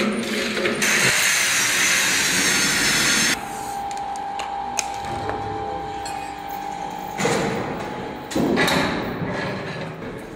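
Power-tool work on steel machinery: a loud hissing burst for a couple of seconds, then a motor whine held steady for about four seconds, with a few sharp metal clicks and more bursts of tool noise near the end.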